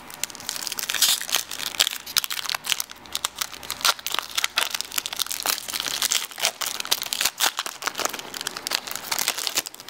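Foil wrapper of a Topps Chrome baseball card pack crinkling and tearing as it is opened and peeled back by hand: a dense, irregular run of sharp crinkles.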